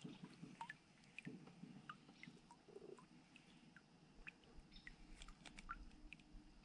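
Near silence, with faint, scattered small ticks and chirps.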